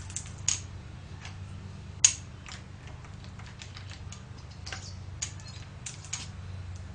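Irregular sharp metallic clicks and ticks from a Sieg C2 7x12 mini lathe's carriage as its handwheel is turned by hand, with one louder click about two seconds in, over a low steady hum.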